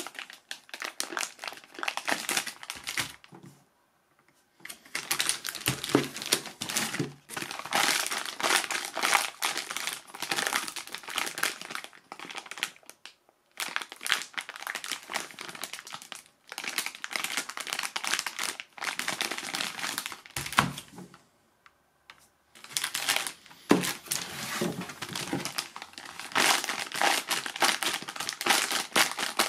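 Clear plastic bags around 3D printer filament spools crinkling as the spools are handled and turned over, in long rustling stretches with three short pauses.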